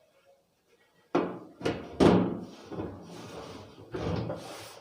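Cover of a DVR rack box being fitted into place: a few sharp knocks about a second in, then sliding and scraping, and another knock near the end.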